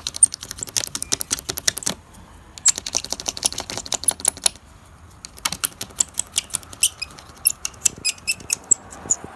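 Razor blade scraped in quick strokes over windshield glass, a rapid chatter of clicks with faint high squeaks in three spells with short pauses: scraping the cured repair resin flush with the glass.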